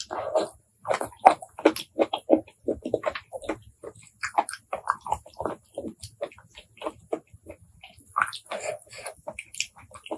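Close-miked chewing of raw blood cockle meat: a quick, irregular run of mouth smacks and small clicks.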